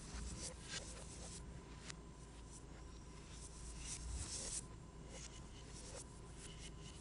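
A stylus scratching across a tablet screen in irregular strokes of different lengths, one cutting off sharply past the middle, over a faint steady tone.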